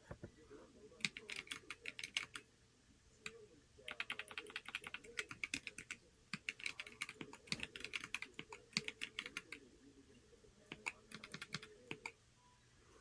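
Typing on a Corne split mechanical keyboard: runs of rapid key clicks in three bursts, about a second in, from about four to nine seconds, and again near the end, with short pauses between them.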